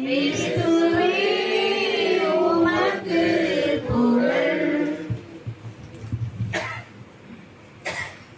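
Congregation singing the response to the Gospel acclamation together in several voices for about five seconds, then stopping. Two brief soft noises follow near the end.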